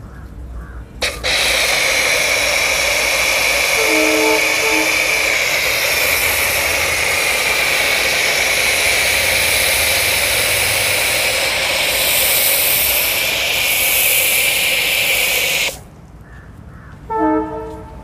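STARQ ST W4 PRO pressure washer running and spraying snow foam through its foam lance. A steady, loud hiss starts abruptly about a second in and cuts off shortly before the end.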